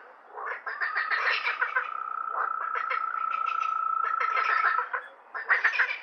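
Frogs calling in a chorus: dense, rapid pulsed croaks, with a steady high tone held for about four seconds. The calling breaks off briefly at the start and again about five seconds in, then resumes.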